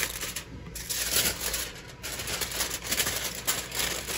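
Aluminium foil crinkling and crackling irregularly as it is folded over by hand into a packet.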